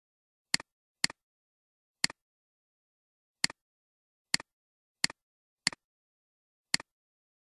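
Computer mouse clicking: eight sharp clicks at uneven intervals, each a quick press-and-release double tick.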